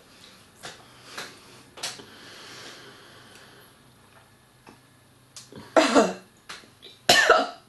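A woman coughing and gagging twice on a mouthful of dried mealworms, two harsh, rough coughs about six seconds in and again near the end, after a few faint clicks and soft breathing.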